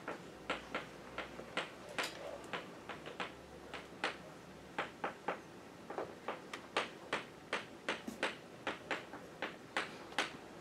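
Chalk tapping on a blackboard as words are written out: a quick, uneven run of short, sharp taps, about three a second.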